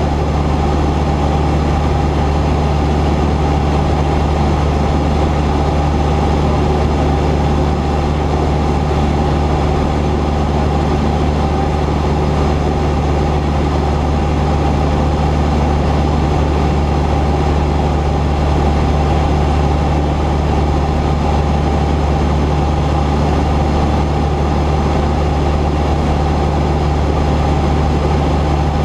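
Cessna 172's piston engine and propeller running with a loud, steady drone, holding one even pitch.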